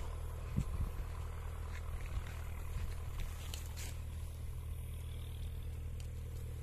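Small engine running steadily at a constant speed, with a few faint clicks and scrapes over it.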